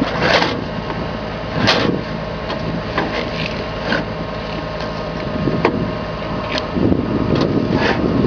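Heavy truck engine running steadily under load, with a scatter of sharp clicks and knocks.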